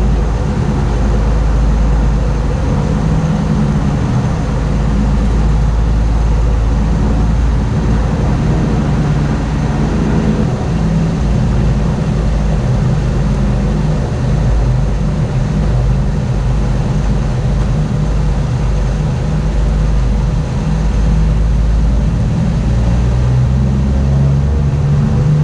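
A Piper Navajo's twin piston engines and propellers running steadily at high power during departure, heard from inside the cockpit.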